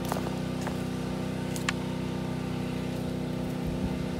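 A portable generator's engine running at a steady, even hum, with a couple of light ticks from handling at the wooden beam.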